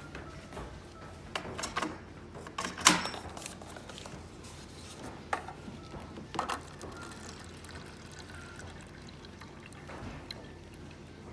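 Lever-operated water dispenser pouring a thin stream of water into a paper cup. A few sharp knocks come first, the loudest about three seconds in, as the dispenser and cup are handled.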